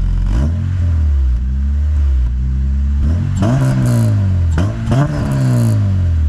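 The 2005 Acura RSX Type-S's 2.0-litre K20 four-cylinder is revved three times from idle, each time rising and dropping back, through an HKS Hi Power cat-back exhaust with its silencer installed. It sounds almost stock, not much louder than the factory exhaust.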